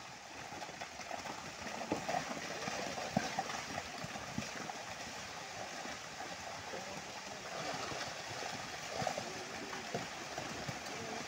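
Earth and stones of a landslide sliding down a hillside: a steady rushing noise with a few scattered knocks of falling rocks.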